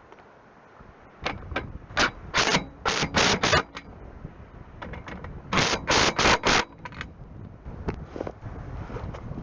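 Bolts on solar-panel mounting rails being run down with a socket tool: two groups of short, rapid metallic rattling bursts, the first about two seconds in and the second near six seconds.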